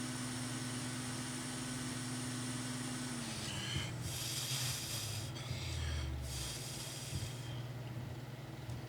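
A steady workshop hum, with a motor tone that winds down and stops about three seconds in, then two short bursts of breathy hissing air.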